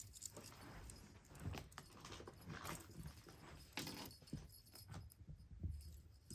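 Faint, irregular soft taps and low thumps of a small kitten moving about on its paws.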